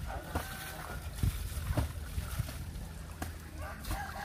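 Water splashing and sloshing as pond water is worked by hand around the tracks of a Kubota DC-70 combine harvester, with a few sharp knocks over a steady low rumble.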